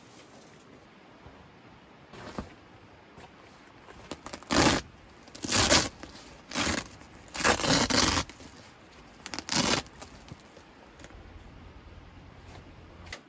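Pomoly hot tent's fabric rustling and scraping around the stove jack as it is handled, in five or six loud bursts starting about four seconds in.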